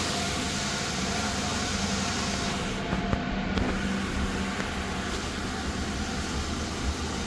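Ford Crown Victoria P71's 4.6-litre V8 idling steadily, running on a newly replaced fuel pump after years of sitting. A few light clicks about three seconds in.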